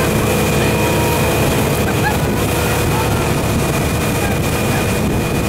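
Motorboat running steadily, a continuous engine drone under a wash of noise.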